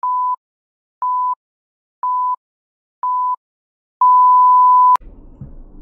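Countdown timer beeps at a single steady pitch: four short beeps, one a second, then one longer beep of about a second at zero that cuts off abruptly.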